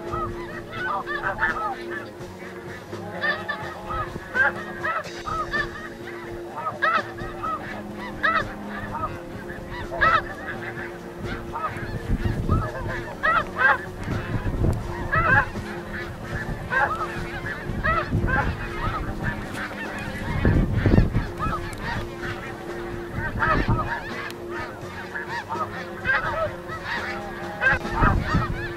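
A flock of snow geese calling, many short overlapping honks going on throughout. Gusts of wind buffet the microphone several times, the strongest about two-thirds of the way through.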